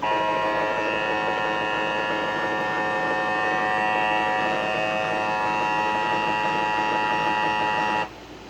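Emergency Alert System two-tone attention signal from a television, a steady unbroken alarm chord held for about eight seconds and cut off sharply near the end. It sounds distorted through the TV. It follows the SAME header data bursts and comes before a severe thunderstorm warning message.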